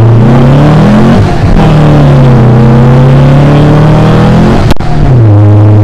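Air-cooled 1915cc flat-four engine of a VW Beetle pulling hard under acceleration, heard from inside the car. The pitch climbs, breaks at a gear change about a second in, and runs high again. Near the end the revs drop and settle to a steady lower drone.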